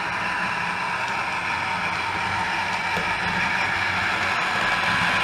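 OO gauge model diesel locomotive with a DCC sound decoder running: the diesel engine sound from its small onboard speaker, mixed with the wheels and motor on the track, slowly getting louder as it comes closer.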